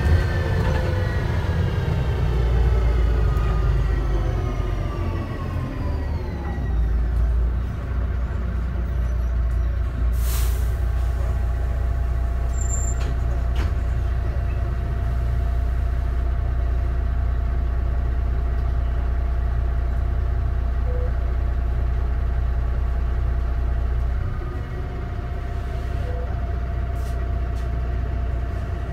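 DAF DB250 double-decker bus slowing down, its drivetrain whine falling in pitch over the first several seconds, then standing with the diesel engine idling steadily. There is a short hiss about ten seconds in.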